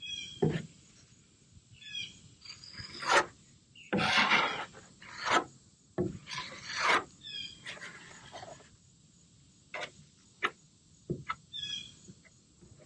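A spreader scraping and smearing thick epoxy fairing compound, in irregular strokes of varying length across the foam mixing board and over the fibreglass hull.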